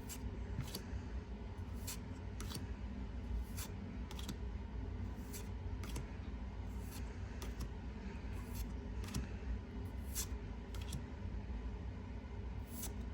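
Pokémon trading cards being flipped through one at a time from a freshly opened booster pack: short papery swishes and taps about once a second, over a low steady hum.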